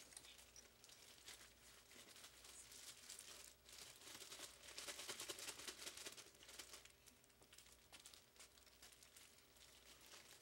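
Plastic bag crinkling and rustling as beef pieces are shaken in it to coat them with spelt flour.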